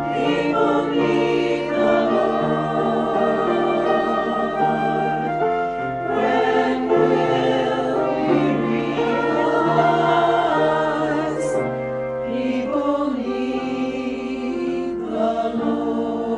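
A choir singing sacred music, sustained sung chords over a moving bass line.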